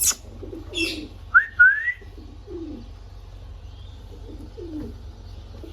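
Pet parrots calling: a sharp high screech at the start, a squawk just under a second in, then two quick rising whistles, followed by soft, low muttering sounds.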